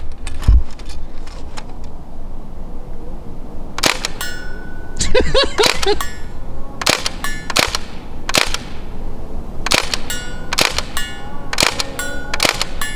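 A CO2-powered full-auto BB-gun replica of a Thompson submachine gun firing short, rapid bursts and single shots, a dozen or so strings of sharp pops with a ringing tone in several of them. Lighter clicks come first, and the bursts start about four seconds in.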